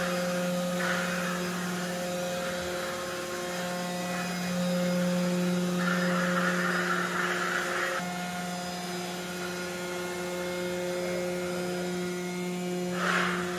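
Electric drive and steering motors of a four-wheel independent steering robot platform running as it manoeuvres: a steady electric hum with a hissing whine that swells for a couple of seconds midway, and a brief louder rasp near the end.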